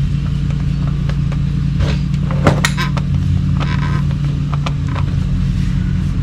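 Metal clicks and knocks of a new spin-on oil filter being tightened with a ratchet and a cup-type filter wrench, over a steady low mechanical hum.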